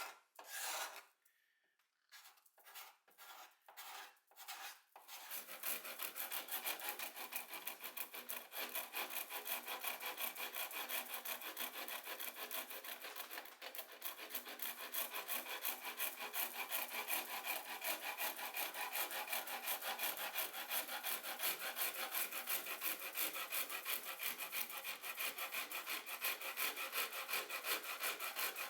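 Wood being worked by hand with an abrasive tool, stroked back and forth. There are a few separate strokes at first, then from about five seconds in a fast, steady run of strokes.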